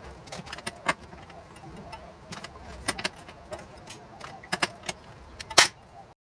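Pop rivet being set with a riveting tool: a series of sharp metallic clicks and clacks as the tool works the rivet, ending in one loud snap about five and a half seconds in as the pin breaks off.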